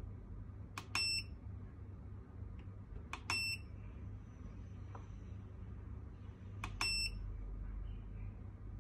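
An EE0011 eddy current conductivity meter gives three short, high electronic beeps, each just after a sharp click: about a second in, a little after three seconds, and near seven seconds. They come as the probe is set on the test blocks and new conductivity readings appear. A low steady hum runs underneath.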